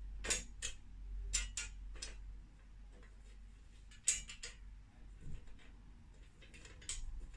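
Small metal clicks and taps, several sharp ones in the first half and fainter ones near the end, as screws are fitted by hand into a joint of an IKEA Mulig clothes rack's metal tubes.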